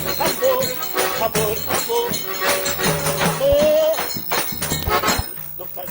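Instrumental forró pé de serra: accordion melody over a steady beat of jingling, shaker-like hand percussion. The music thins out and gets quieter near the end.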